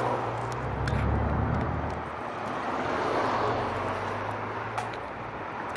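Road traffic: a motor vehicle's engine and tyres swelling as it passes and fading, over a steady traffic hum, with a couple of faint light ticks.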